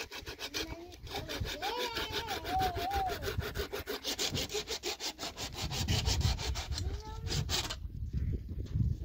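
Wood being sawn by hand in quick, even strokes, about six a second, stopping shortly before the end. A wavering call rises over the sawing about two seconds in and again near seven seconds.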